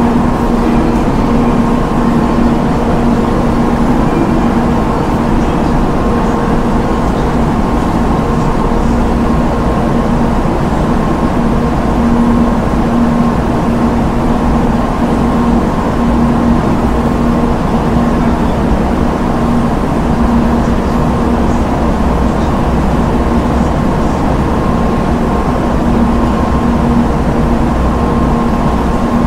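Idling train engine at a station: a steady, unchanging low drone with a constant hum that holds one pitch throughout.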